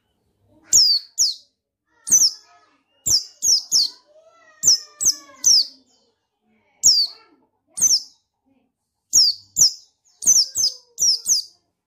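Buxtoni white-eye (pleci) giving short, sharp, high calls that each drop in pitch, about fifteen in irregular runs of two to four.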